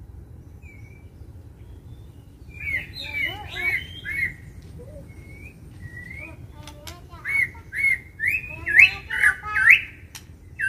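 White-rumped shama (murai batu) singing loud, clear whistled phrases. A short run of notes comes about two and a half seconds in, then from about seven seconds a louder string of sharp upswept whistles in the agitated song of a bird roused to fight.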